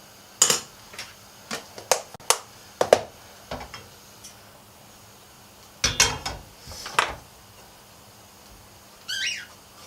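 Kitchen utensils clinking and knocking against a pan and dishes in a string of separate sharp strikes, several in the first few seconds and another short cluster later, with a brief high squeak near the end.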